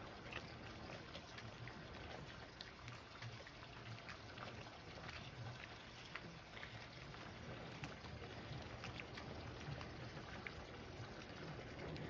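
Faint water lapping and trickling against a floating dock, with scattered small ticks and splashes.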